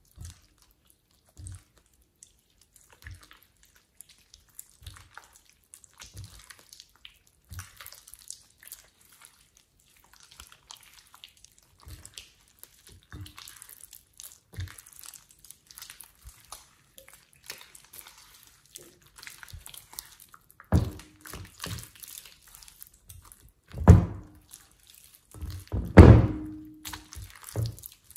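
Wet, sticky slime squished and stretched by hand, giving many small crackles and squelches, with a few louder squelches near the end.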